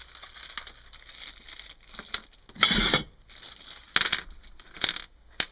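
Packet of small hardware parts crinkling and rustling as it is handled and opened. The loudest rustle comes about two and a half seconds in, with shorter ones near four and five seconds and a sharp click just before the end.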